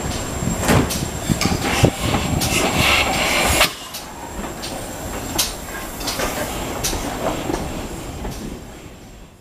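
GWR 5239 'Goliath', a 2-8-0 steam tank locomotive, rolling slowly along the track, its wheels clicking and knocking over rail joints, with a hiss of steam about three seconds in. After a sudden drop in level about four seconds in, quieter, sparser clicks fade away near the end.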